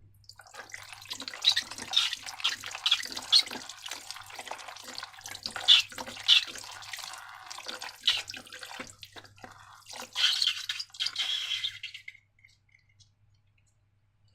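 Slime being squished and worked, a long irregular run of short, wet, sticky squelches and clicks. It stops about two seconds before the end.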